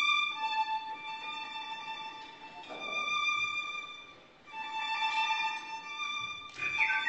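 Solo violin playing long, sustained bowed notes, one held tone after another, with a short break about four seconds in.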